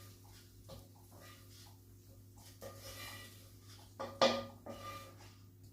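Quiet kitchen handling of a pan and utensils: a few faint scrapes and taps, then one sharp knock about four seconds in, over a steady low hum.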